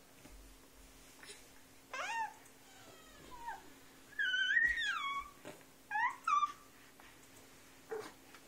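A cat meowing: a short call about two seconds in, a longer drawn-out meow in the middle, then two quick short ones.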